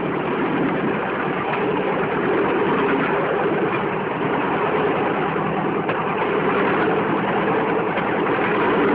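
Bamboo train (norry) travelling along the rails: its small engine runs steadily under a constant noisy rush of wind and wheels on the track.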